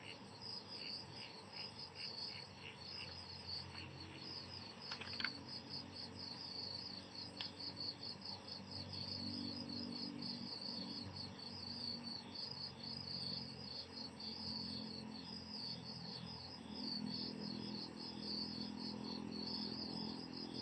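Crickets chirping in a steady, rapid, even train of high pulses, over a faint low hum.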